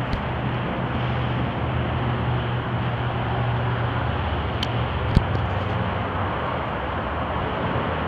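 Steady outdoor background noise with a low, even hum underneath, and a single sharp click about five seconds in.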